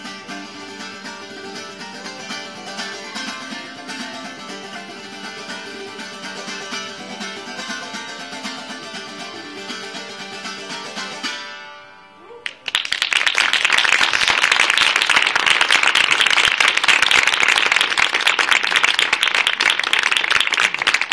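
Chitarra battente, a Calabrian steel-strung folk guitar, plucked in a melodic piece that ends about twelve seconds in, its last notes dying away. Then an audience breaks into applause, louder than the guitar, which keeps going.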